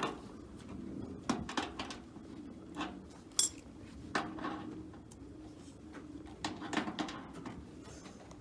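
Scattered metallic clinks and knocks of tools and parts being handled, about a dozen irregular strikes, the sharpest and brightest about three and a half seconds in.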